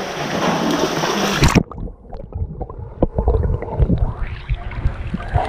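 Water splashing as a Labrador swims with a ball toward a camera at the waterline; about a second and a half in, the bright splash hiss cuts off suddenly and the sound turns muffled, with low thuds and gurgling, as the camera dips under the surface.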